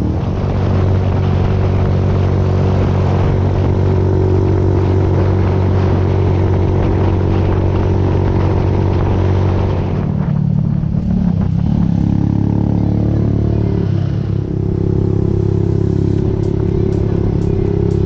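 Yamaha FZ16's single-cylinder four-stroke engine running steadily under way, with wind rushing over the microphone. About ten seconds in, the wind eases and the engine note changes, then holds steady again.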